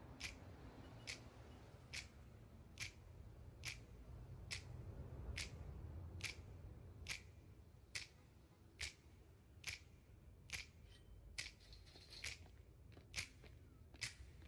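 A quiet run of sharp, evenly spaced clicks, about one a second, like a slow tick, over a faint low hum.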